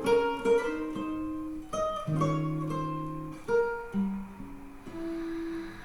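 Recorded music played back through a home-built speaker with an Alpair 7 V2 10 cm full-range driver: a plucked guitar passage of single notes, each ringing and fading, between sung lines of a ballad.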